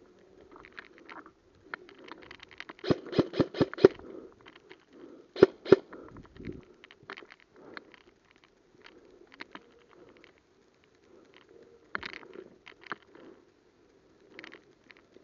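Airsoft guns firing. A quick string of about six shots comes a few seconds in, two more shots follow shortly after, and single shots and clicks are scattered throughout, over low rustling.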